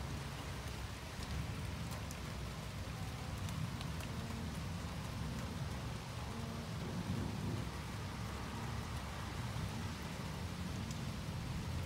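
Steady rain falling during a thunderstorm, with a low, continuous rumble of thunder underneath and a few sharp ticks of drops.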